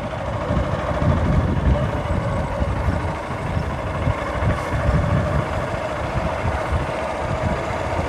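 Motorcycle engine running steadily as the bike rides slowly along, with an uneven low rumble of wind on the microphone.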